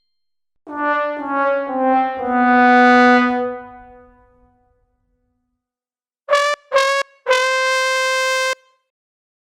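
A brass 'sad trombone' gag: four notes stepping downward, the last held longest and fading. A few seconds later a horn sounds two short blasts and then one long steady blast.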